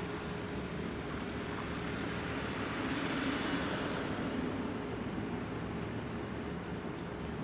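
A vehicle passing near a railway level crossing, heard as an even rushing noise that swells about three seconds in and then eases back.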